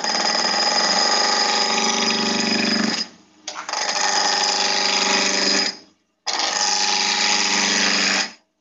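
Woodturning gouge cutting a spinning beech blank on a lathe, in three passes of about two to three and a half seconds each with brief breaks between them.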